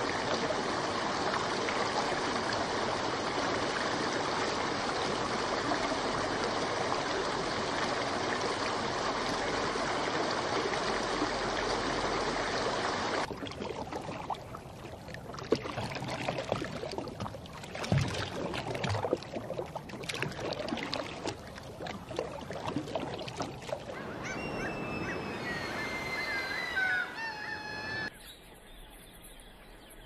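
A steady rushing noise for about thirteen seconds, which cuts off suddenly. Then irregular small splashes and clicks, as a mallard dabbles at the water's edge. Near the end come a few seconds of twittering bird calls with quick pitch slides.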